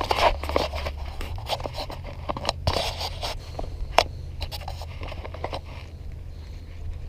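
Irregular scraping and scratching with sharp clicks, the loudest about four seconds in, over a steady low rumble of wind on the microphone.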